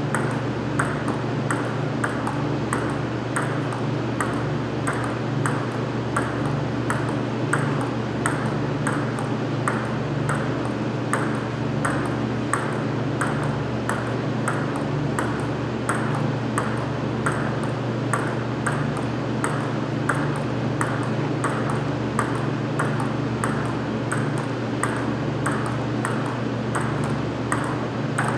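Table tennis ball clicking in a steady rhythm, about two sharp ticks a second, as it is struck and bounces in a continuous drill, over a steady low hum.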